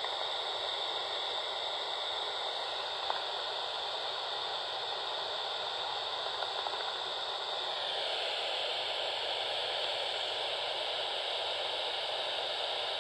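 Steady static hiss from a bat detector's speaker, its tone shifting slightly about eight seconds in, with one faint tick about three seconds in and no clear run of bat calls.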